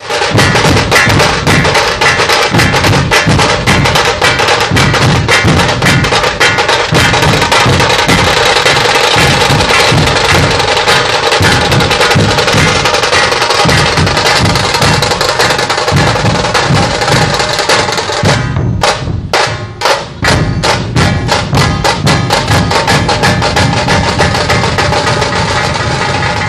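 Dhol-tasha pathak drumming: many dhol barrel drums playing a fast, loud rhythm under the rapid sharp strokes of tasha kettle drums. About eighteen seconds in, the rhythm breaks into a few separate, spaced strokes, then the full ensemble comes back in.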